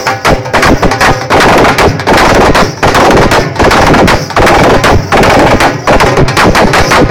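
Dhol drums beaten in a fast, dense rhythm, very loud and overloading the recording.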